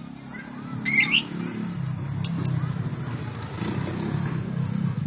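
Lovebird giving a loud, harsh shriek about a second in, then a few short, sharp high chirps. A steady low rumble runs underneath.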